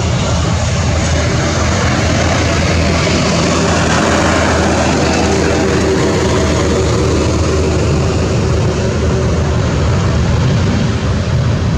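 Jet engines of a landing Malaysia Airlines Boeing 737 as it touches down and rolls out: a loud, steady rush of engine noise with a low hum beneath.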